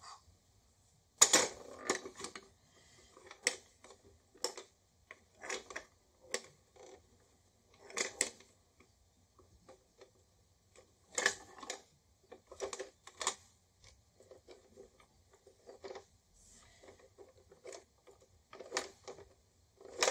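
Irregular plastic clicks and clattering knocks from an old late-1970s 'Run Yourself Ragged' toy game being worked, as its repaired plastic track is tested.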